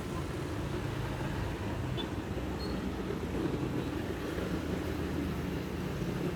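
Suzuki GSX-R150's single-cylinder engine running steadily, with no revving.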